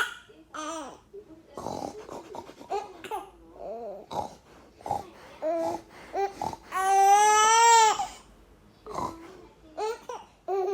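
Baby babbling in short bursts, then a loud, drawn-out squeal about seven seconds in, followed by more short babbles.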